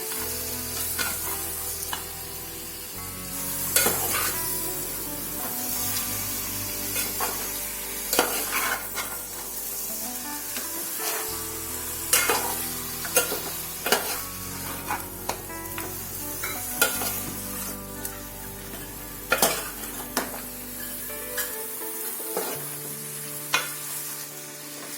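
Masala frying and sizzling in a cooking pot while a spoon stirs it, with sharp clicks and scrapes of the spoon against the pot every second or two.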